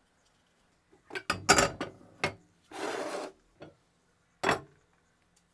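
Handling noises: a cluster of sharp knocks about a second in, then one scraping rasp lasting about half a second, then a single knock near the end.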